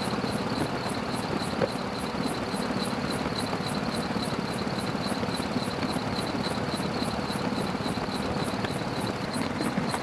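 Helicopter in flight heard from on board: a steady engine-and-rotor drone with a fast, even beat pulsing through the hiss.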